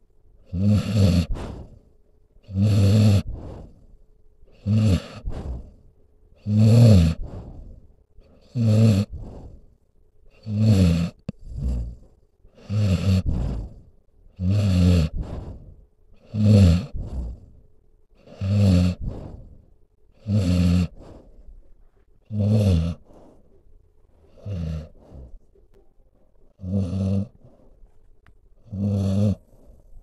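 Sleeping dog snoring, a rattling snore on each breath, about one every two seconds.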